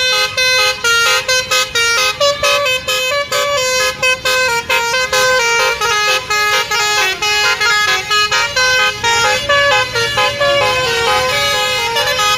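Basuri telolet musical horn playing a fast tune of short stepped notes, one after another with brief gaps between them.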